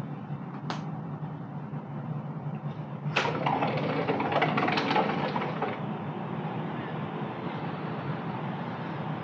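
Distant city traffic heard from high up on a balcony: a steady low hum, with a louder rushing swell about three seconds in that lasts nearly three seconds, and a single click near the start.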